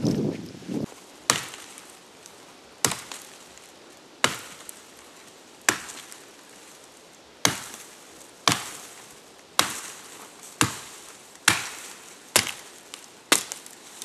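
Axe chopping a dead tree: about eleven sharp blows into dry wood, roughly one every second or so, coming a little faster toward the end.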